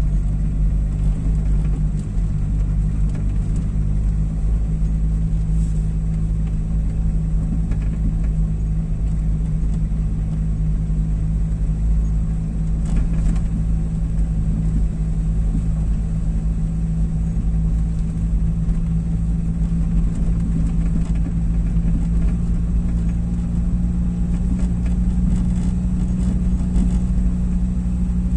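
Car driving slowly, heard from inside the cabin: a steady low engine hum with rumble from the tyres on brick paving, the hum edging up in pitch over the last several seconds.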